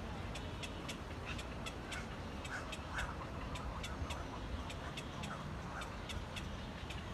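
Scattered short calls from birds in an egret nesting colony, over a rapid, steady ticking and a constant low rumble.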